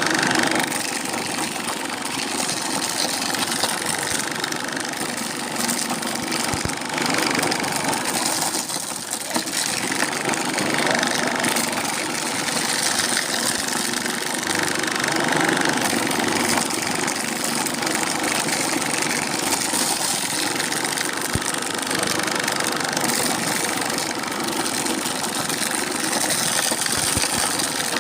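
Corn grinding mill running steadily: a constant, dense mechanical noise.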